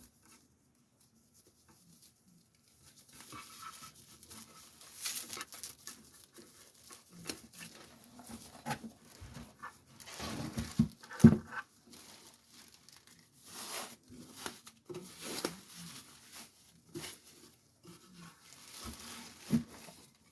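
Speaker packaging being handled during unboxing: irregular rustling and crinkling with scattered knocks and thuds, the loudest knock about eleven seconds in.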